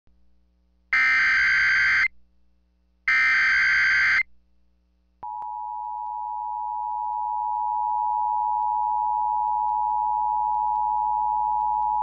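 Emergency Alert System broadcast: two bursts of warbling SAME header data tones, about a second each, then from about five seconds in the steady two-tone EAS attention signal, which announces a warning message.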